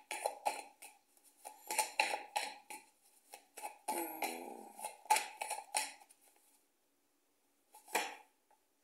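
An oracle card deck being shuffled and handled: quick runs of card clicks and flicks in bursts, stopping about six and a half seconds in, with one short rustle near the end.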